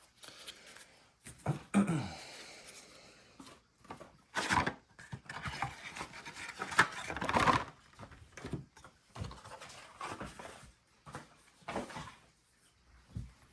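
Trading card packaging being handled: cardboard blaster box and foil pack wrappers rustling and tearing in several separate bursts, the loudest a few seconds in.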